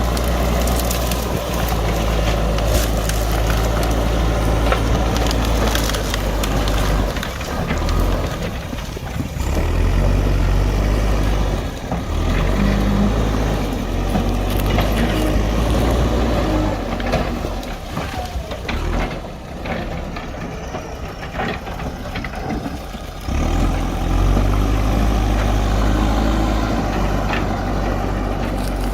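JCB backhoe loader's diesel engine working under load, with short cracks and crunches scattered through it as the tree and its roots are pushed and dug out. The engine eases off for a few seconds past the middle, then picks up again.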